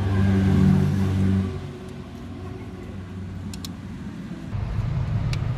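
A Hyundai Grand i10's three-cylinder diesel engine running just after its timing chain and damaged gear were replaced. The steady engine note drops away about a second and a half in, and a rougher low running sound picks up again near the end.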